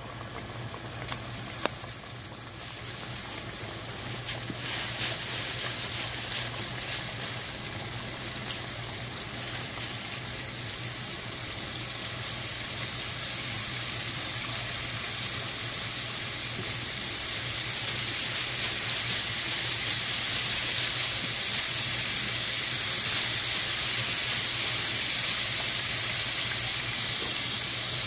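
Whiting fillets deep-frying in a pot of hot oil: a steady sizzle and bubbling that grows gradually louder as it goes on.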